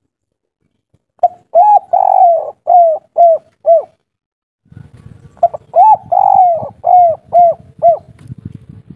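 Spotted dove cooing two song phrases in the 'kuk 3' pattern: each opens with a short note and a rising coo, then one long drawn-out coo, then three short 'kuk' notes at the end. A low background rumble comes in during the second phrase.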